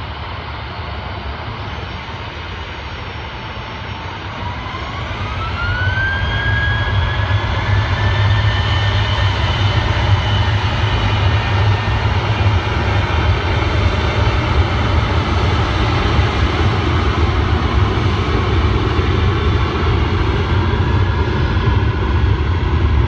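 Jet airliner engines spooling up: a whine rises in pitch about five seconds in as the sound grows louder, then holds loud and steady.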